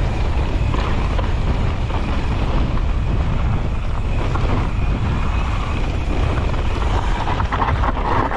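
Wind buffeting the microphone of a mountain bike ride, over the steady rumble of tyres on dirt and rock, with a stretch of rattling clatter near the end.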